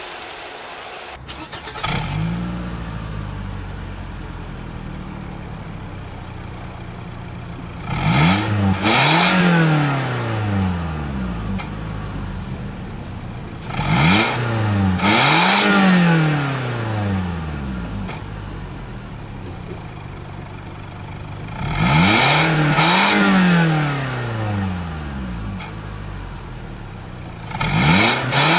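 The 2.5-litre four-cylinder engine of a 2014 Toyota Camry idles and is revved in pairs of quick blips, about four pairs. Each rev climbs sharply in pitch and falls back to idle.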